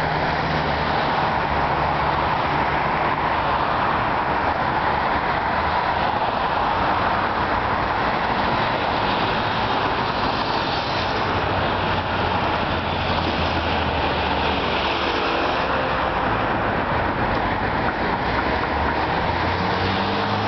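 Steady noise of road traffic on a riverside road, with the engine hum of passing cars and motorbikes rising and falling as they go by.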